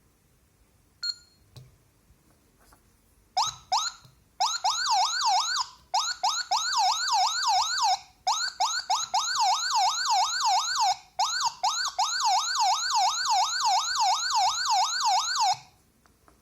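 Electronic police siren module: a short beep about a second in, two brief blips, then a fast yelping siren tone sweeping up and down about four times a second, with a few brief breaks, cutting off suddenly near the end.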